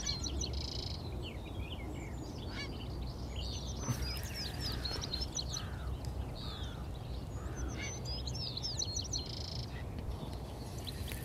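Songbirds singing and chirping: one bird gives a short song phrase ending in a buzz at the start and again near the end, with scattered chirps between, over a low steady rumble.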